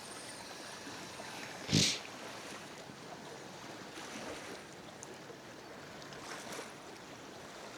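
Soft, steady outdoor hiss with no clear engine or motor tone, broken once about two seconds in by a short, sharp rustle.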